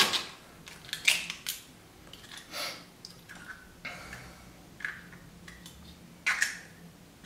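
Eggshell halves cracking, clicking and scraping as eggs are separated by hand. The sounds are short, sharp and scratchy, spread irregularly, with a little dripping and handling of a cup between them.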